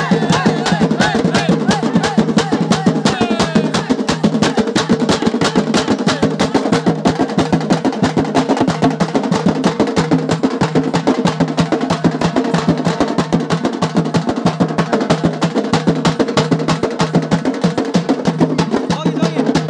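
Loud, fast procession drumming: rapid, even drum beats that keep going without a break, over a steady held droning tone.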